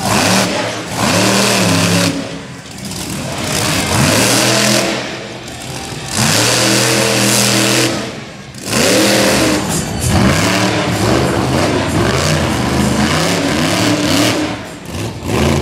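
Monster truck engines revving hard in repeated bursts, the throttle opened and let off every couple of seconds so the pitch climbs and falls.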